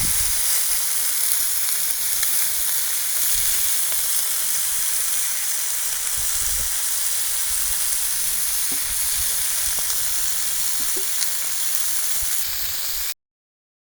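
Chicken sizzling steadily on a hot marble stone slab, with a few soft knocks. The sound cuts off abruptly near the end.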